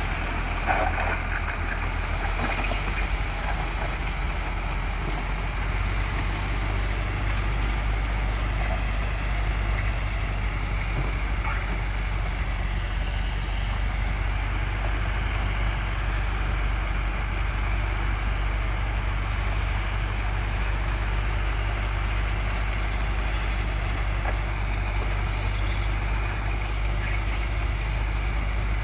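Caterpillar 416B backhoe loader's four-cylinder diesel engine running steadily under load while its front bucket pushes railway ballast, with crushed stone scraping and rattling under the bucket.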